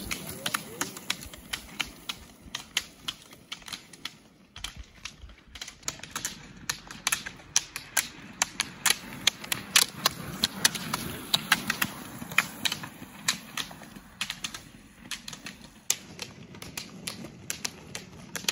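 Roller-ski pole tips striking asphalt in quick, irregular sharp clicks as several skiers skate past poling, over the low rumble of the roller-ski wheels on the pavement. The clicks thin out for a couple of seconds about four seconds in.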